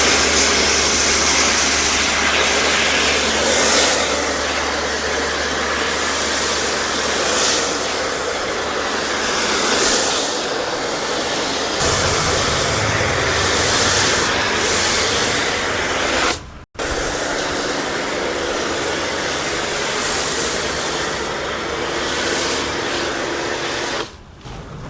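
High-pressure car washing machine spraying water onto a car: a loud, steady hiss of the jet over the low hum of the pump motor. It cuts out for an instant about two-thirds of the way through and stops just before the end.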